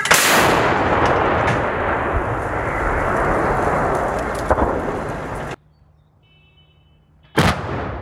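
A 203 mm 2S7 Pion self-propelled gun firing: a sharp, loud blast followed by a long rolling rumble that fades over about five seconds before cutting off. Near the end, a second short blast of a gun firing.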